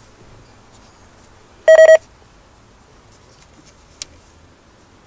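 Uniden BCT15X scanner giving one loud electronic beep, about a third of a second long, a little under two seconds in, as it is switched back on after reprogramming; a faint click follows about two seconds later.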